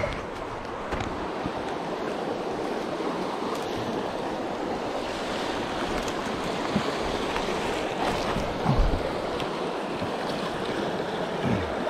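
Steady rush of a fast-flowing river running high past the bank, with some wind on the microphone. A few low bumps break through, the loudest about nine seconds in.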